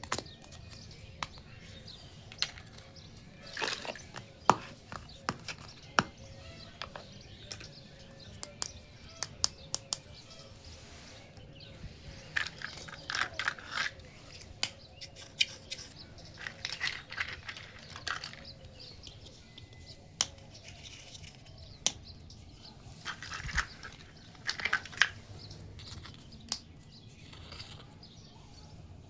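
Small plastic toy kitchen pieces being handled, giving scattered sharp clicks and taps, with a few short stretches of rustling about halfway through and again near the end.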